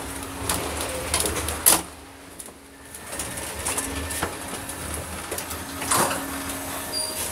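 Passenger train carriage interior: a steady low hum with knocks and rattles. The loudest knock comes about six seconds in as a door handle is worked.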